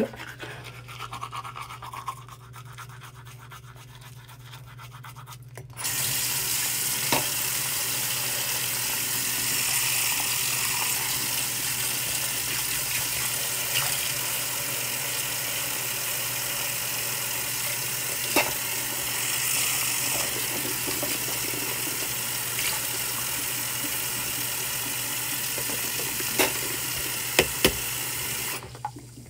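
Teeth being brushed at a bathroom sink: a steady hiss starts suddenly about six seconds in and cuts off just before the end, with a few light knocks.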